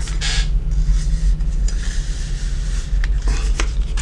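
Leather-sheathed kitchen knives being picked up and handled: a short rustle near the start, then a few light clicks and knocks, over a steady low hum.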